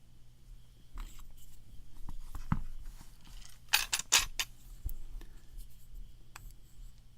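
Small metal clicks and rattles of a lock and its picking tools being handled, with a louder burst of sharp clicks and scrapes about halfway through.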